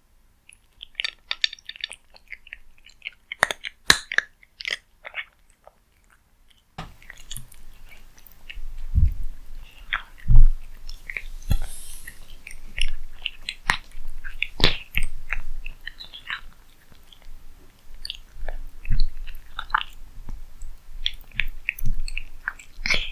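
A cat eating cat food close to the microphone: irregular chewing and lip-smacking clicks. They are sparse at first and busier from about seven seconds in, with a few louder knocks.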